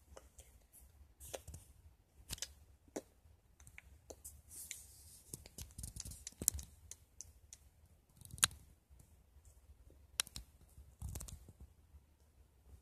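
Handling noise from a phone held close to the microphone: scattered soft clicks and taps with short rustles of fingers and bedding, the sharpest click a little past the middle.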